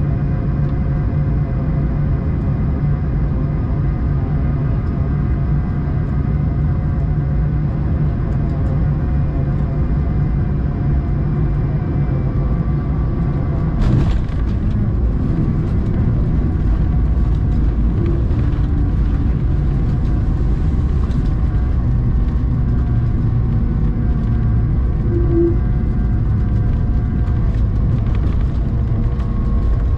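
Cabin noise of an Airbus A220-300 on final approach: a steady roar with the hum of its Pratt & Whitney PW1500G geared turbofans. About halfway through the main wheels touch down with a thump. After that comes a rougher rumble from the runway as the aircraft rolls out, and an engine tone starts to climb near the end.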